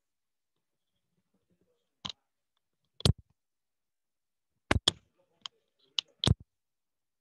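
A series of seven short, sharp clicks at uneven intervals, two of them in quick succession about halfway through.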